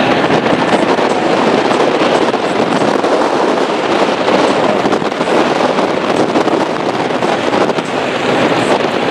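Loud, steady wind rush on the microphone of an offshore powerboat running at speed, mixed with the noise of its engine and hull on the water.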